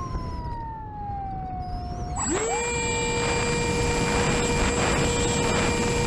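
Brushless electric motor and propeller of an RC flying wing, heard from an onboard camera: the motor's whine slowly drops in pitch while it runs at low throttle, then about two seconds in it spins up quickly and holds a steady high whine. Wind rushes over the microphone throughout.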